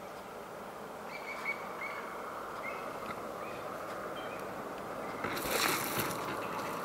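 A Cape porcupine's raised quills rattle in a short, loud, harsh hiss about five seconds in, as a leopard lunges into it. Underneath is a steady rumble, and a few short bird chirps come earlier.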